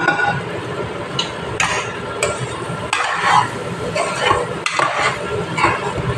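A steel spoon stirring and scraping stuffed pointed gourds through thick masala in a steel kadhai, in irregular strokes every half second to a second, over a steady frying sizzle.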